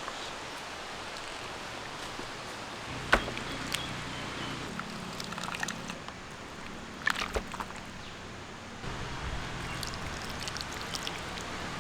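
Turkey paya bubbling in the cooking pot, with a few sharp clicks: one about 3 seconds in and a short cluster around 7 seconds.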